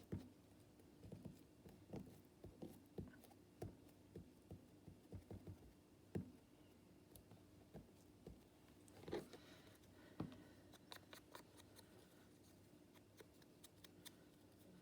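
Paper-craft work on a table: scattered light taps, clicks and rustles of paper and small tools being handled, a few slightly sharper knocks among them.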